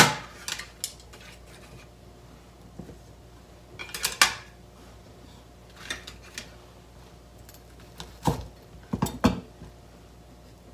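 Sparse clicks and knocks of a chef's knife on a cutting board and on a ceramic plate as deep-fried fish-paste patties are cut and plated. There are sharp clicks about four seconds in and a few heavier knocks near the end.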